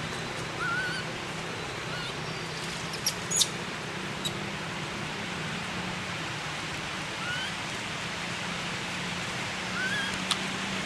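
Outdoor forest ambience: a steady hiss with a low hum under it. Four short, high, rising chirps come every few seconds, and a few sharp clicks stand out, the loudest about a third of the way in.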